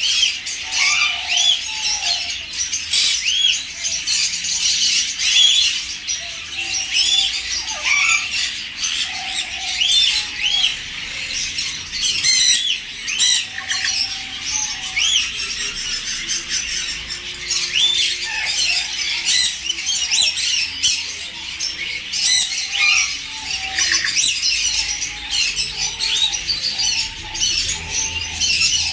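Caged birds chirping and squawking without a break: many short calls that rise and fall in pitch, overlapping one another.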